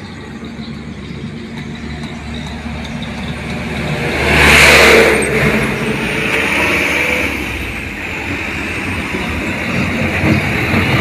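A motor vehicle passes by: its noise swells to a loud peak about four to five seconds in, then falls away. Another vehicle's noise builds again near the end.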